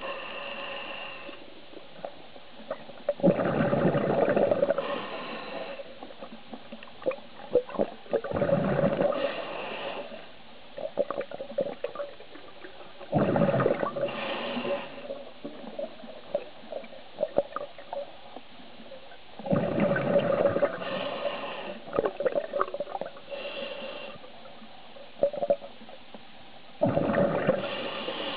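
Scuba regulator breathing: five bubbling exhalations, roughly every five to seven seconds, with fainter hissing inhalations between them. Scattered sharp clicks run through the background.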